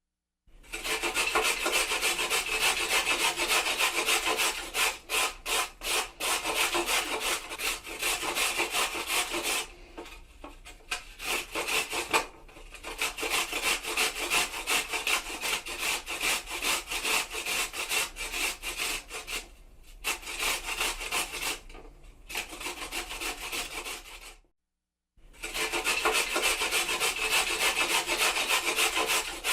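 Kitchen grater grating, in quick repeated rasping strokes with a few short pauses. It stops briefly near the end, then starts again.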